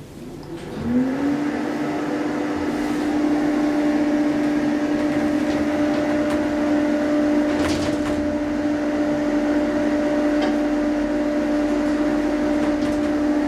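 Hydraulic elevator's pump motor starting up: a hum that rises briefly in pitch about a second in, then holds steady as the car travels.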